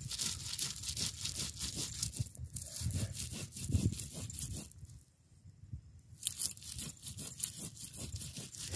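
Stone roller ground back and forth on a flat stone grinding slab (pata-varvanta), crushing onion and coriander seeds into a paste: repeated gritty scraping strokes, stopping for about a second halfway through before starting again.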